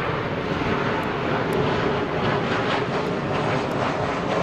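Fixed-wing aircraft engines running at an airfield: a steady, even rushing noise with no breaks.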